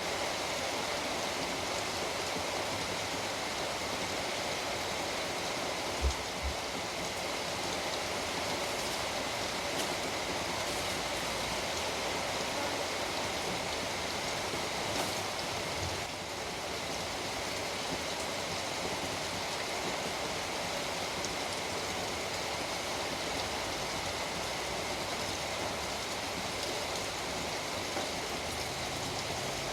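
Steady heavy rain falling, an even hiss with no pattern, with two brief low thumps about six seconds in.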